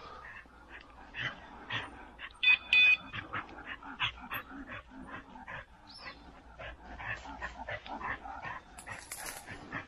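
A bird dog giving short high whines and yips, with a loud burst about two and a half seconds in, over a run of brief rustling and crackling sounds.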